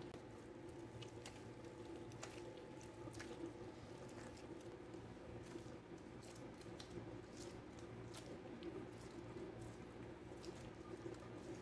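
Donut dough being kneaded by hands in disposable gloves: faint, irregular squishing and sticky clicks as the dough is pressed and folded on the worktop, over a steady low hum.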